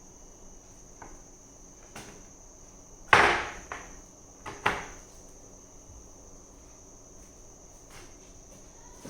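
Plastic Lego Technic pieces being handled and fitted: a few light clicks, then a louder knock about three seconds in and two more a second and a half later. A steady high-pitched whine sits underneath throughout.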